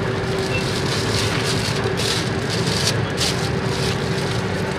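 Plastic bag crinkling as it is handled and filled, in several short rustles around the middle, over a steady low mechanical hum with a constant tone.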